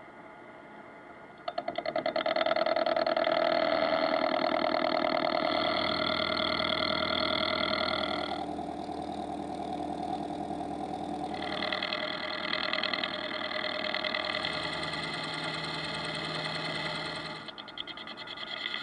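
Metalworking machine tool running, its motor and gearing giving a steady whine of several tones. It comes up loudly about a second and a half in, shifts in tone twice in the middle, and drops off near the end.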